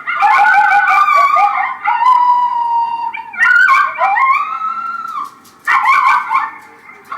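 Primos Alpha Dogg electronic predator call playing a recorded canine call through its speaker, loud and clear at a low volume setting. It starts with a run of choppy yips, gives two long howls that rise and fall in pitch, and ends with another burst of yips.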